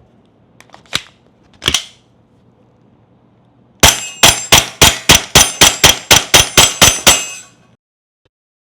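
GHK Glock G45 gas blowback airsoft pistol: two sharp metallic clacks, then a rapid string of about thirteen shots at roughly four a second, each with the snap of the slide cycling.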